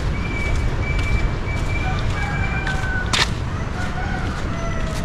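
Roosters crowing faintly, several long drawn-out calls overlapping one another, over a steady low rumble, with one sharp click about three seconds in.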